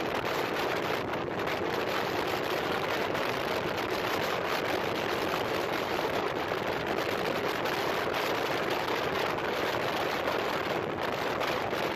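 Asya Ultra 150 (200cc) motorcycle on the move: a steady rush of wind over the microphone mixed with engine and road noise, with no change in pace.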